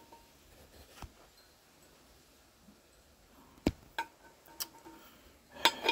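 A few scattered light clicks and taps of handling over a quiet background, with a quicker cluster of clicks near the end.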